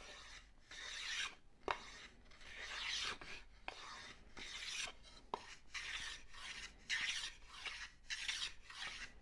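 Block plane worked along the edge of a wooden board in repeated hissing strokes, about one a second, with a few sharp clicks between strokes.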